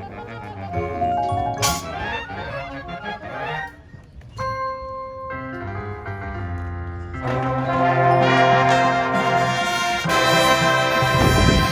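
High school marching band playing: mallet percussion and brass in a quieter passage with a cymbal crash near the start, then full brass chords building louder from about seven seconds in.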